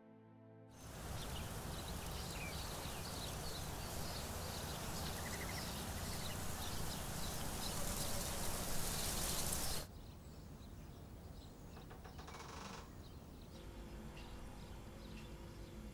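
Outdoor garden ambience: small birds chirping again and again over a steady, even background hiss. About ten seconds in it cuts off suddenly to quieter indoor room tone with a faint low hum.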